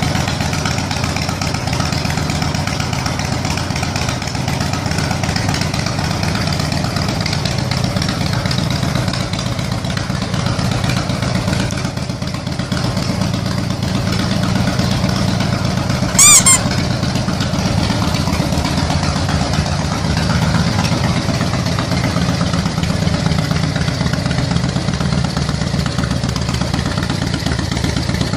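Harley-Davidson V-twin motorcycle engine running steadily with a low rumble. About halfway through, a brief high-pitched chirp sounds over it.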